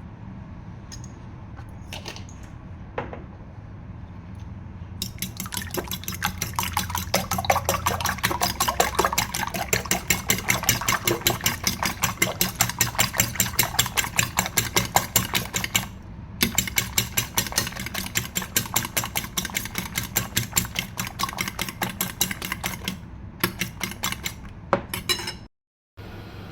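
Egg whites being beaten with a fork or whisk in a bowl: rapid, regular strokes clicking against the bowl, with a short pause partway through, over a steady low hum.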